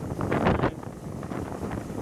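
Wind buffeting a microphone held out of the window of a moving steam-hauled train, over the train's running noise. The loudest gust comes about half a second in, then it eases.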